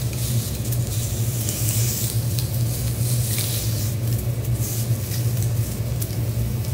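Abalone sizzling on a hot steel teppanyaki griddle as it is sliced, with a few light clicks of the knife against the plate, over a steady low hum.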